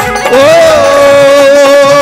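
Live Hindi devotional bhajan: a male singer enters about a third of a second in and holds one long, steady high note over harmonium and tabla/dholak accompaniment.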